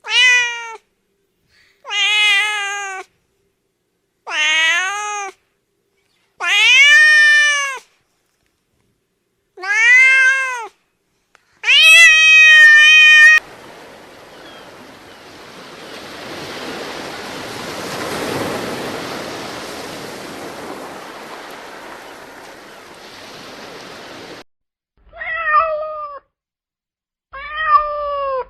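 Domestic cat meowing: six loud, drawn-out meows about two seconds apart. Then about ten seconds of rushing noise that swells and fades, and two shorter meows near the end.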